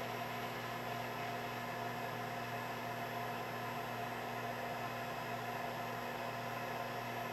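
Countertop air fryer oven running mid-cook: its convection fan whirs steadily over a low, even electrical hum.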